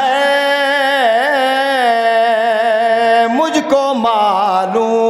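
A man singing Urdu couplets in a slow melodic chant, drawing out long notes that waver in pitch, with a short break about three and a half seconds in.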